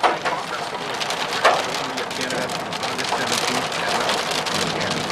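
Rain and hail pelting a car's roof and windshield, heard from inside the car: a dense, steady patter of many small hits, with a couple of sharper knocks near the start and about a second and a half in.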